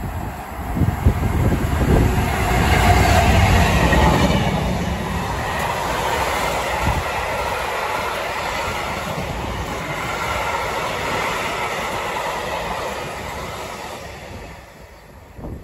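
Diesel-hauled freight train passing close at speed: the locomotive's engine and heavy wheel knocks are loudest in the first few seconds, then a long rake of box wagons rolls by with a steady rumble and clatter of wheels on the rails, fading away near the end.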